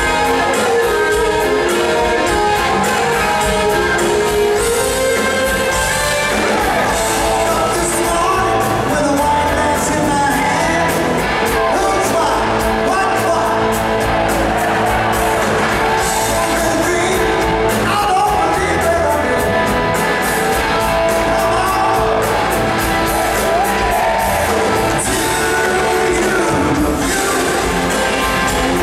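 Live rock band playing loud in a large hall, with electric guitars, keyboard and drums and a voice singing over them.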